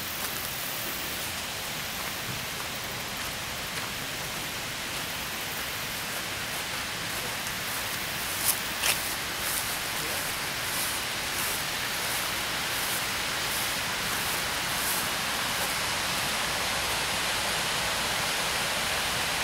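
Steady rushing of water spilling over a low river dam, growing a little louder toward the end. Two sharp clicks about halfway through.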